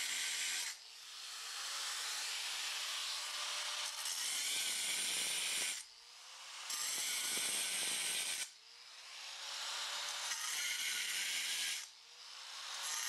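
Handheld angle grinder cutting and grinding granite, a steady grinding noise. It drops off abruptly four times, and after each drop it builds back up with a rising motor whine.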